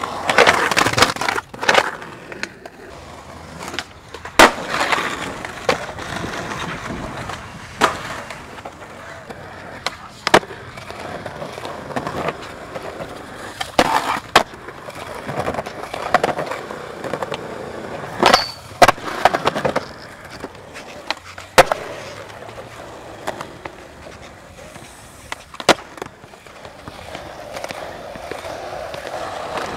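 Skateboard wheels rolling over concrete and asphalt, with sharp clacks from the board's tail pops and landings every few seconds.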